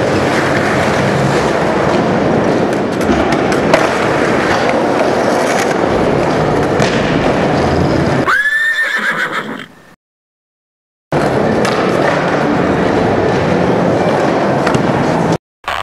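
Skateboard wheels rolling loud and steady, cut about eight and a half seconds in by a short rising whinny-like sound effect, then a second of dead silence before the rolling starts again.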